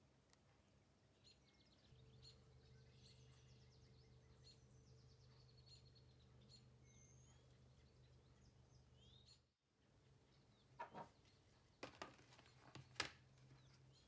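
Near silence: a low hum and faint birds chirping in the background. In the last few seconds there are several sharp, light knocks from small metal parts being handled and set down; the loudest is near the end.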